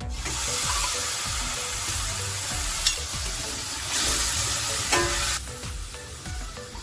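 Duck stock ladled into a hot steel pan of fried onions and green chillies, sizzling loudly the moment it hits, while a metal spoon stirs and clinks against the pan. The sizzling dies down about five seconds in.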